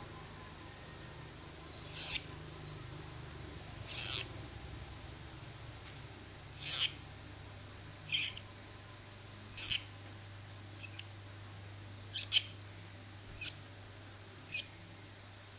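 The back of a craft-knife blade drawn along thin strips of plastic drinking straw to curl them into leaves: about ten short, squeaky scrapes, one every second or two.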